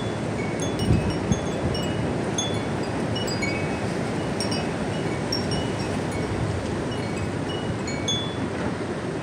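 Strong wind blowing, with gusts buffeting the microphone about a second in, while metal wind chimes ring in short, irregular notes.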